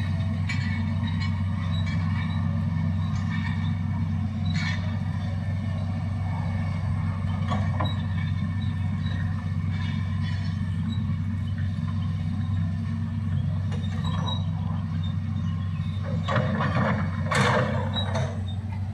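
Hitachi excavator's diesel engine running steadily under work, with scattered metallic clanks and scrapes and a louder burst of them near the end.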